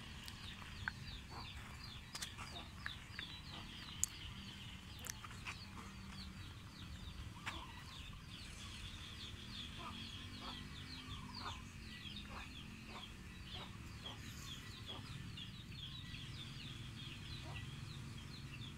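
Birds chirping continuously: many short, high-pitched chirps, several a second, over a low steady rumble.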